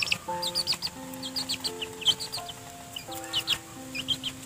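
Chicks peeping in rapid clusters of short, high chirps, over background music of slow held notes.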